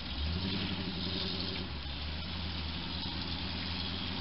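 Off-road 4x4 engine running at low revs, a steady low drone that picks up a little just after the start.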